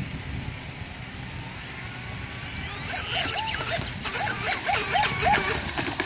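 A dog barking in a quick run of short barks through the second half, over a low background rumble.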